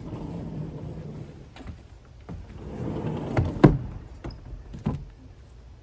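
Sliding barn door rolling along its track, with a sharp knock as it comes to a stop about three and a half seconds in and a lighter knock just over a second later.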